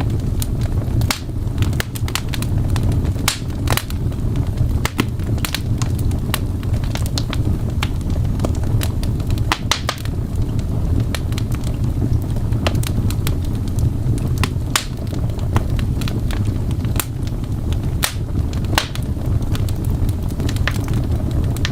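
Fireplace crackling: irregular sharp pops and snaps, a few each second, over a steady low rumble.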